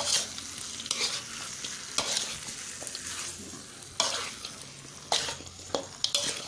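A utensil stirring chicken, potatoes and roasted peanuts through massaman curry paste and coconut cream in a pot. Scraping strokes come every second or two over a steady sizzle from the pot.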